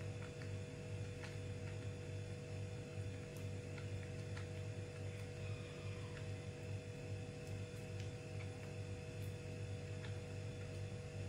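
A steady low hum with a few faint, scattered clicks.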